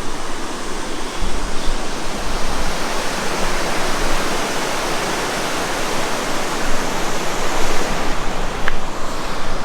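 Steady rush of river water, with low wind bumps on the microphone about a second in.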